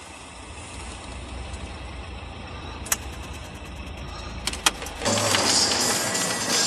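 Car engine idling, heard from inside the cabin as a steady low rumble, with a few sharp clicks around the middle. From about five seconds in, a louder rushing noise takes over.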